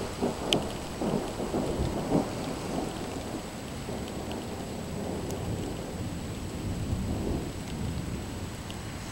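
Thunder rolling and rumbling, with several surges in the first couple of seconds and a softer swell later, over steady rain.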